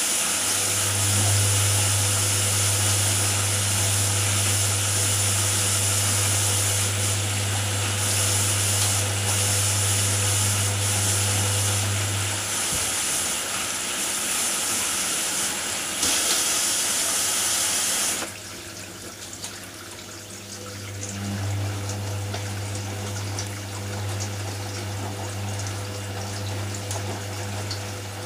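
Hoover Nextra front-loading washing machine taking in water: a steady rushing hiss that stops abruptly about two-thirds of the way through. Under it the drum motor gives a low hum as the drum turns, which pauses for a few seconds in the middle and starts again as the drum tumbles the load.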